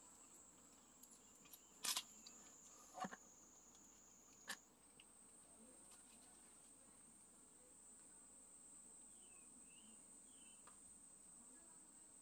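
Near silence with a faint, steady, high-pitched trill of insects that steps up slightly in pitch about a third of the way in. Three soft clicks come in the first five seconds.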